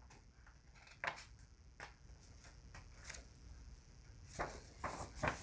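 Faint handling of a picture book as a page is turned: a few soft, scattered taps and paper rustles, more of them near the end.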